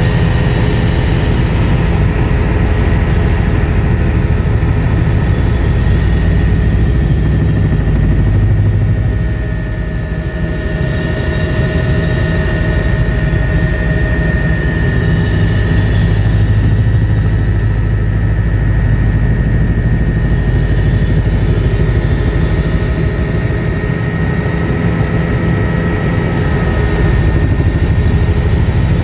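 Helicopter in flight heard from the passenger cabin: a steady, loud engine-and-rotor drone with a fast low rotor flutter and a thin steady whine above it. The noise dips slightly about ten seconds in, then holds steady again.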